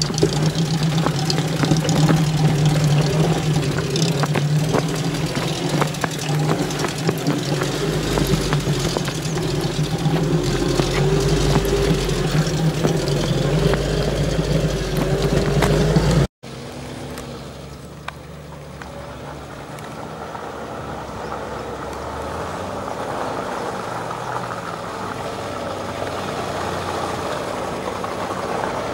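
Off-road vehicle engine running steadily as a UAZ-469 crawls over a rocky forest track. The sound cuts off abruptly about halfway through, and then a quieter engine grows slowly louder as a Nissan Patrol approaches through deep mud.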